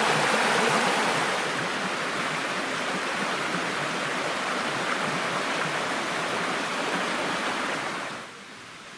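A small woodland stream tumbling over rocks in little waterfalls: steady rushing water. It drops a little in level about a second and a half in, and falls away to a faint hiss near the end.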